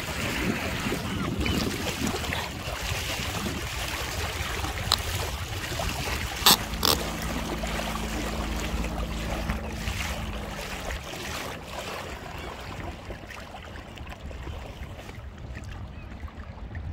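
Water rushing and splashing along the hull of an inflatable kayak under way, over a steady low wind rumble. Two sharp knocks come about six and a half seconds in, followed by a faint low hum for a few seconds.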